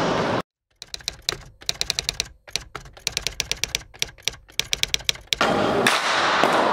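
Typing sound effect: a quick, uneven run of sharp key clicks, about six a second, as text is typed onto a title card. Loud rink-hall noise cuts back in near the end.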